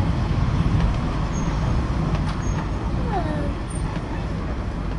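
Western Train heritage tram 733 running slowly along the track, heard from inside its rear saloon car: a steady low rumble of wheels on the rails and the car's running gear.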